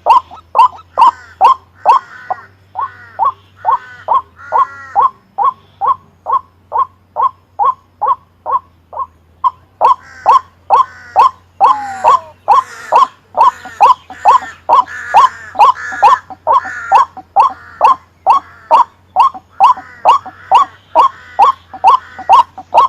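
White-breasted waterhen calling in a fast, monotonous series of short repeated notes, about two to three a second, without a break. From about ten seconds in the calls grow fuller, as if a second bird or voice joins in.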